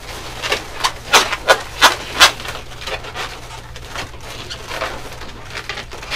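Long latex modelling balloons (260s) squeaking and rubbing against each other as they are twisted into wing loops: a run of sharp squeaks in the first two and a half seconds, then softer rubbing.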